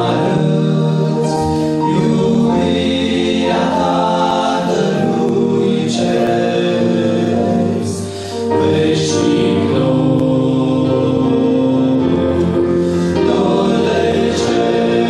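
Male vocal group of five singing a religious song in close harmony into handheld microphones, amplified. There is a short break between phrases about eight seconds in.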